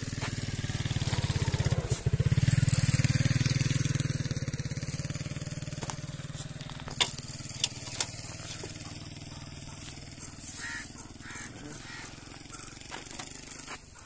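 Motorcycle engine idling with a steady low throb, growing louder about two seconds in and then slowly fading away; a few sharp clicks come around the middle.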